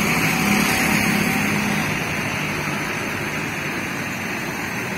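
Tour bus engine running as the bus passes and moves off; its low hum fades after about two seconds, leaving steady road traffic noise.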